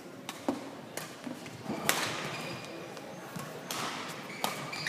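Badminton rackets striking a shuttlecock in a rally: a series of sharp, separate hits, the loudest about two seconds in. A short high shoe squeak on the court mat comes near the end.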